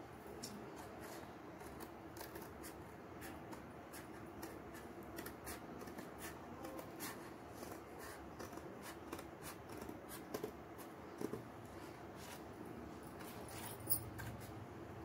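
Scissors cutting cardboard in many small, irregular snips, trimming a round board to the edge of a plate.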